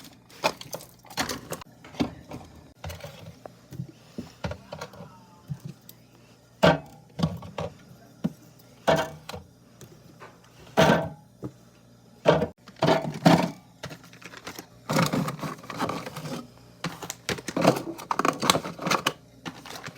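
Drink cans and bottles being handled and set down while a mini fridge is restocked: irregular clinks, thunks and clatters, some ringing briefly.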